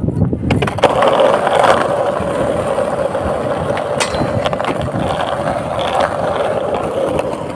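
Skateboard wheels rolling over rough concrete, a steady rattling rumble, with a sharp clack of the board on a low flat metal rail about four seconds in.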